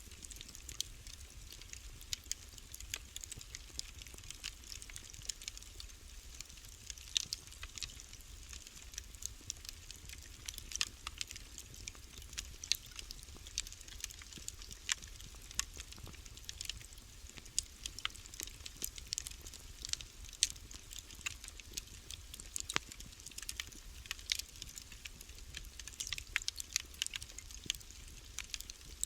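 Wood fire burning in a fireplace, crackling with irregular sharp pops and snaps, several a second, over a low steady rumble.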